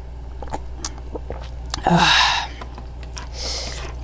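A few light clicks, then two short breathy noises from a person trying the garlic, ginger and turmeric tonic: a louder burst about halfway and a softer, hissier one near the end.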